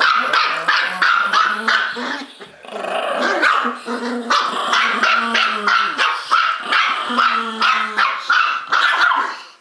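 Two small dogs, a Bichon-poodle mix and a Maltese-poodle mix, barking non-stop, several sharp yaps a second, with low growls mixed in. The barking lulls briefly about two and a half seconds in.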